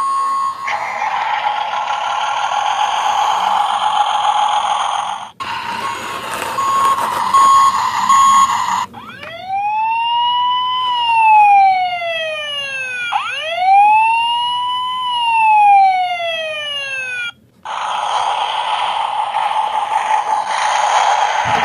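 Battery-powered toy trucks playing electronic sound effects through small speakers. A noisy effect with some beeping tones runs first, then a siren sweeps up and slides down twice, then the noisy effect returns.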